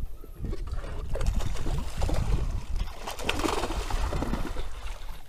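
Sea water splashing irregularly at the side of a small fishing boat as a hooked fish is brought up alongside, a little stronger about three seconds in.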